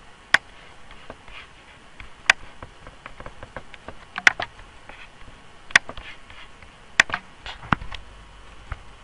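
Computer mouse clicking: single sharp clicks every second or two, one of them doubled.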